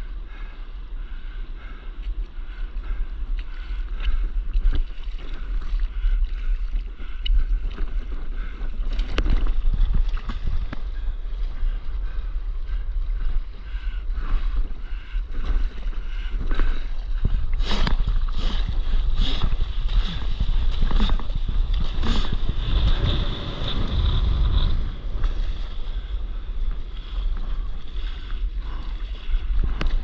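Wind buffeting the microphone over open sea water, a steady low rumble, with irregular splashes and slaps of water that come thicker and louder a little past the middle.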